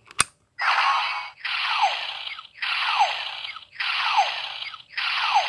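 A click from the Legend Hero Changer DX toy, then its small speaker plays a repeating electronic sound effect: five bursts about a second apart, each with a falling sweep.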